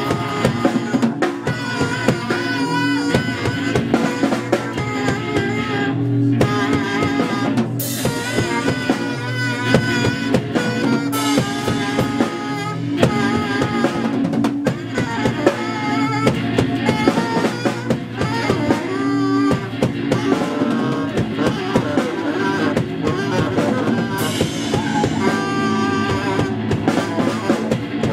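Live rock band playing an instrumental passage: a drum kit keeping a steady beat under electric guitar, with a saxophone carrying a wavering melodic line.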